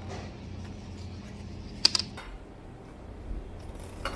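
Light clicks of tableware on a restaurant table over a steady low hum of room noise, with a sharp double click about two seconds in and a smaller one near the end.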